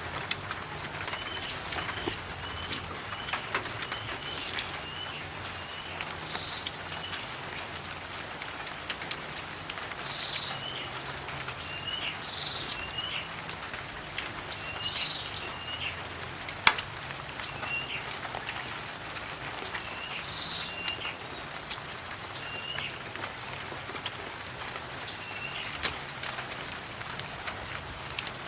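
A bird calling over and over with short, hooked chirps, set against a steady hiss of background noise. Scattered small clicks run through it, with one sharp knock about sixteen seconds in.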